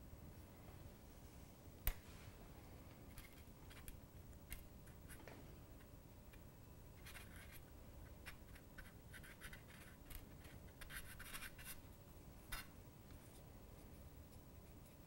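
Faint handling noise: fingertips rubbing and pressing a thin fondant disc onto a hard, textured cookie cup, as quiet scratchy rubbing that comes in runs in the second half. A single sharp click about two seconds in.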